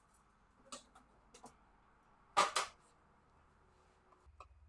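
A few faint clicks and a sharper double knock about two and a half seconds in: a metal hand staple gun being handled and set aside after it stopped working.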